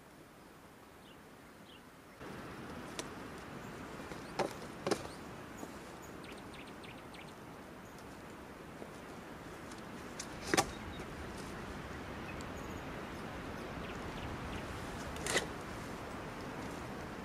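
Several sharp knocks or clicks, about five spread through, the loudest about ten seconds in. They sit over a steady outdoor background hiss that starts abruptly about two seconds in.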